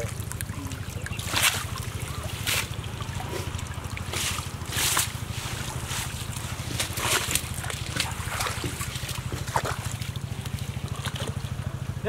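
Water splashing in short bursts as a fishing net is hauled by hand through shallow, weed-choked water. A steady low rumble runs underneath.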